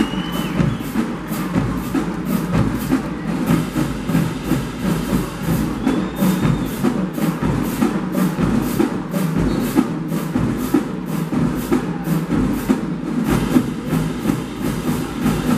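Marching band drumline playing a cadence: snare drums, bass drums and cymbals beating out a steady rhythm of several hits a second.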